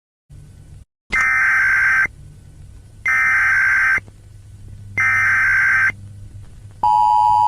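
Emergency Alert System tones: three SAME header data bursts, each a buzzy digital burst about a second long with about a second between them. Near the end the steady two-tone EAS attention signal begins and holds.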